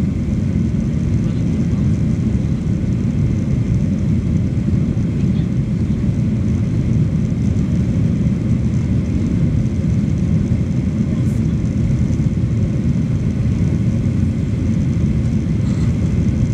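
Steady low rumble of a Boeing 737-800's jet engines and rushing air, heard inside the passenger cabin as the plane climbs out after takeoff with its flaps still extended.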